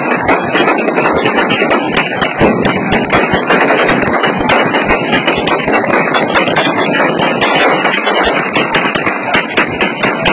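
Celebratory gunfire: many guns fired into the air, sharp shots coming thick and irregular, often overlapping in rapid runs, over a steady din from the crowd.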